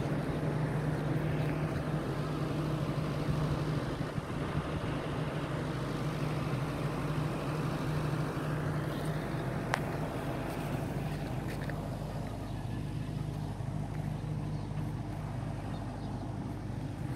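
Steady low hum of a running machine, with a single sharp click about ten seconds in.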